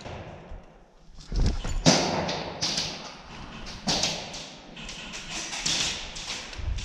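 Footsteps and gear rustling from a player moving on foot, with irregular scuffs and a few thuds; the louder ones come about one and a half, two and four seconds in.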